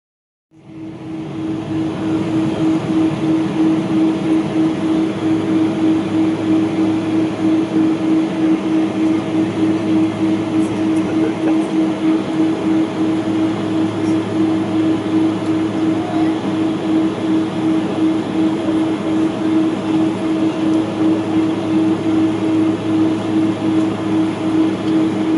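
Cabin noise of a Boeing 777-200ER taxiing on its Pratt & Whitney PW4074D engines at low thrust. A steady hum with a strong held tone rides over a rolling rumble that pulses regularly, cutting in after a moment of silence at the start.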